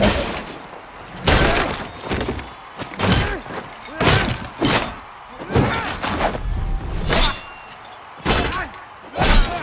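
Sword-and-shield fight between armoured knights: heavy metal hits from blades striking shields and plate armour, about one every second, mixed with the fighters' grunts and shouts.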